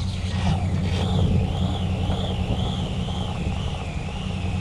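Conventional saltwater reel in free spool paying out line as the bait is lowered, the spool held back by a thumb. From about a second in, its high whine wavers up and down and slowly falls in pitch. A steady low engine hum from the boat runs underneath.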